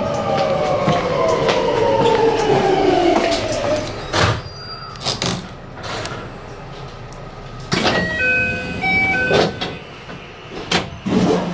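JR West 521 series electric train's inverter-driven traction motors whining and falling steadily in pitch as the train brakes to a stop. After that come a few sharp air hisses and knocks, and a brief electronic chime of a few stepped tones as the doors work.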